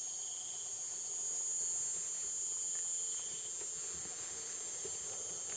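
Chorus of night insects, a steady high-pitched drone that runs on without a break.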